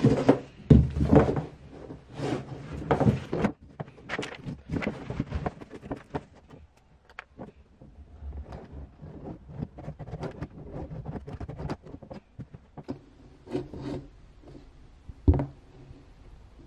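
Cardboard box and a plastic cat flap being handled: rubbing, rustling and small clicks of cardboard and plastic, busiest in the first few seconds, with a sharp knock near the end.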